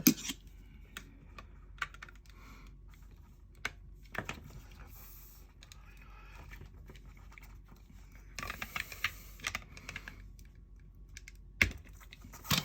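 Scattered small plastic clicks and taps as the locking tabs on an RV wall outlet's two-piece wire connector are pried up to separate it. There is a sharp click at the start, a quick run of clicks in the later part, and a louder snap near the end.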